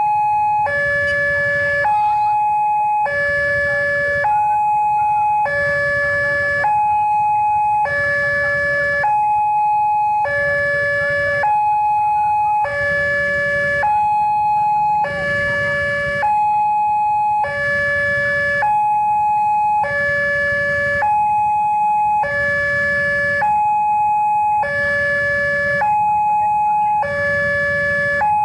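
Railway level-crossing warning alarm sounding two steady tones in strict alternation, each held for a little over a second. It is the signal that a train is approaching while the barriers are down. Underneath is a low, steady rumble of motorcycle engines idling at the crossing.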